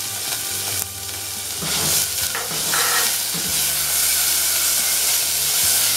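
Chopped onion and garlic sizzling as they fry in hot oil in an aluminium saucepan, stirred with a silicone spatula, with a few short scrapes. The pan is very hot, and the sizzle grows a little louder about two seconds in.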